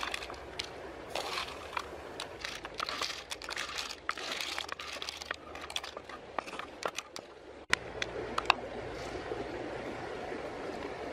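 Cockle shells clicking and clattering against each other, with leaves crinkling, as the cooked shellfish are handled on a leaf-lined tray. The sound cuts off suddenly about eight seconds in, giving way to a steady hiss with a couple more clicks.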